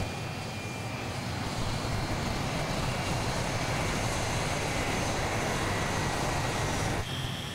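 McDonnell Douglas C-17 Globemaster III's four turbofan engines running steadily as the aircraft rolls forward during a combat offload: a steady rush of jet noise with a faint high whine. The rush thins out near the end.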